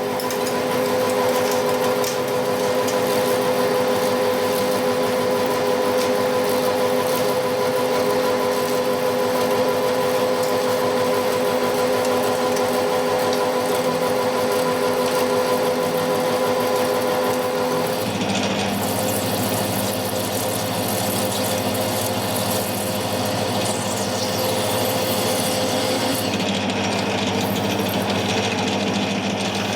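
Metal lathe running steadily while machining a precision-ground 50 mm 4140 steel drive shaft. About eighteen seconds in the sound changes to a lower hum with more hiss.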